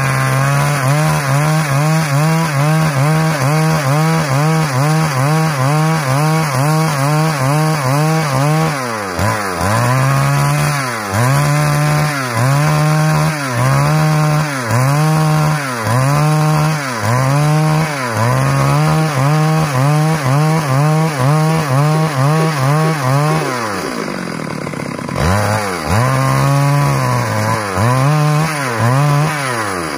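Stihl MS 382 two-stroke chainsaw at full throttle cutting through a large log, its note sagging and recovering over and over, about once a second, as the chain bites. It eases off briefly a few seconds before the end, then bites again.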